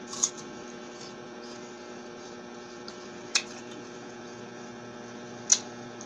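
A person biting and chewing a piece of apple: three short, sharp crunches, the loudest near the end, over a steady electrical hum.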